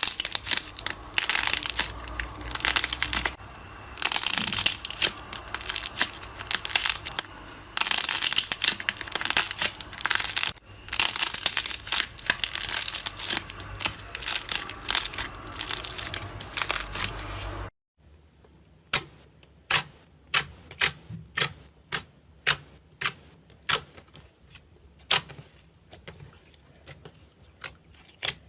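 Dense crinkling and crackling handling noise, then, after an abrupt cut about two-thirds of the way in, a run of sharp separate clicks about one to two a second.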